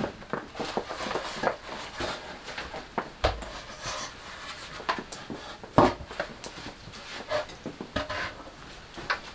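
Wooden shelf frames and a plank being handled and stood up: a string of knocks and scrapes of wood on wood, with a dull thump just after three seconds and the loudest knock near six seconds.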